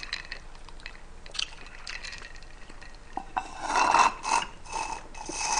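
Small clicks and clinks of a straw and ice in a glass mason jar of lemonade. From about three and a half seconds in, a run of louder sucking and slurping comes through the straw.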